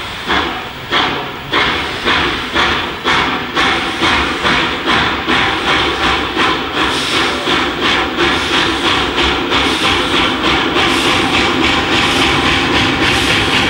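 Small steam locomotive chuffing as it gathers speed: sharp exhaust beats over a steam hiss, about two a second at first, quickening to a fast, even beat near the end.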